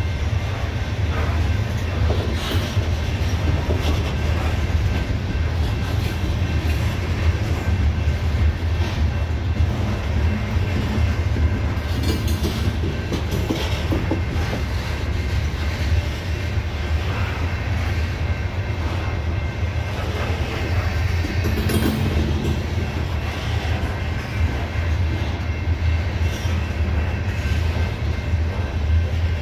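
CSX coal train's hopper cars rolling past on steel rails: a steady low rumble of wheels on track, with occasional knocks.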